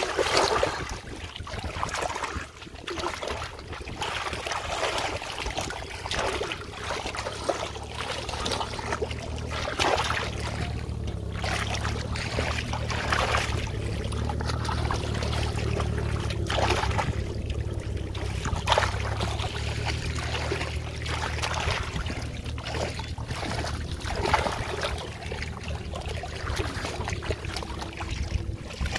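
Water splashing and sloshing irregularly in shallow muddy floodwater as hands and feet churn through it, over a steady low rumble.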